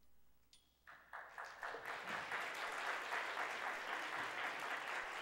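Audience applause: near silence, then clapping breaks out about a second in and builds within a second to steady applause.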